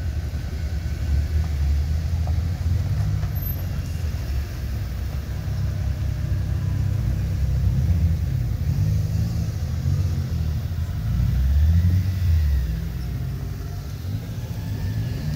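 Several Suzuki Jimny 4x4s driving slowly past in turn with their engines running at low revs, the rumble swelling as each one passes close, loudest about two-thirds of the way through.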